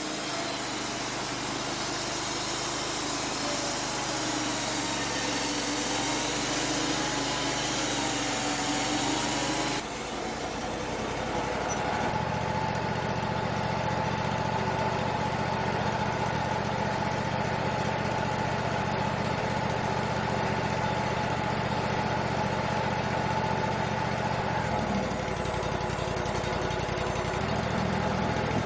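Wood-Mizer LT35 band sawmill running: for about the first ten seconds the blade is in the log, a loud hiss with a wavering whine over the machine. After a brief dip the sawmill runs on with a steady, even hum.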